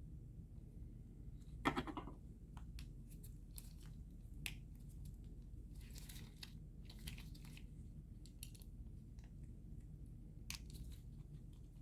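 Parts of a GFCI outlet being handled and pried apart: scattered small clicks and short scrapes of plastic and metal, with a louder crunching scrape about two seconds in.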